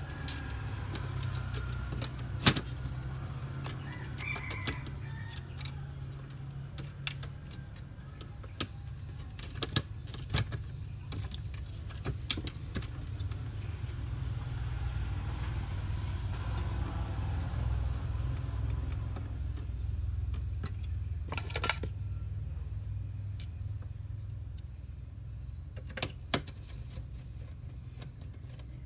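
Scattered sharp clicks and taps of plastic and metal laptop parts being handled as a motherboard is seated back into a laptop's plastic base casing, with one longer scraping sound about two-thirds of the way through. A steady low hum runs underneath.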